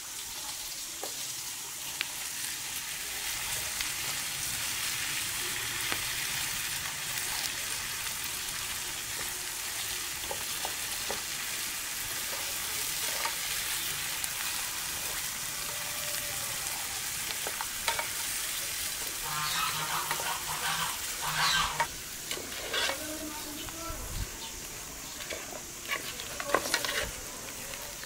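Sour pomegranate seeds and sliced onions frying in oil in a black pan, with a steady sizzle, as a wooden spoon stirs them. In the second half the stirring gets louder, with scrapes and knocks of the spoon against the pan.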